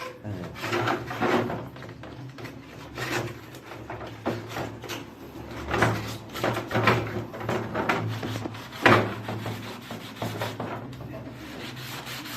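Hand scrubbing of a disassembled air conditioner part: irregular rubbing strokes, several a second, with a few louder strokes along the way.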